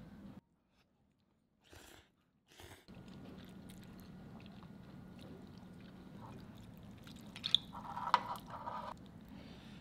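Quiet eating sounds from a bowl of clam kalguksu: chopsticks and a wooden spoon working the noodles and broth. After a couple of seconds of near silence broken by two soft sounds, there is a brief, louder patch of sharp clicks and wet noodle sounds about three-quarters of the way through.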